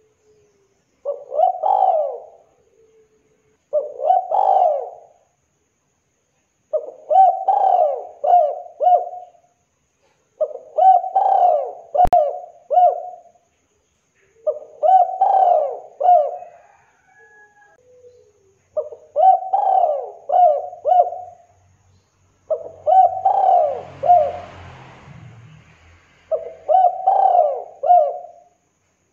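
Spotted dove cooing: eight repeated multi-note phrases, one every three to four seconds. A single sharp click comes about twelve seconds in.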